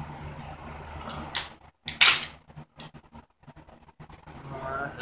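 Hand tools and metal bike parts clanking during a motorcycle tear-down: one loud sharp metal clank about two seconds in, then a few lighter taps and clicks, over a low steady hum.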